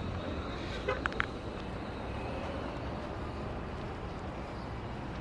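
Steady outdoor street noise: a low rumble of road traffic, with a couple of short sharp sounds about a second in.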